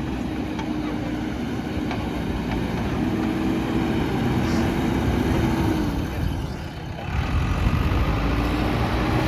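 JCB backhoe loader's diesel engine running with a steady hum. It dips briefly about two-thirds of the way through, then comes back louder and deeper.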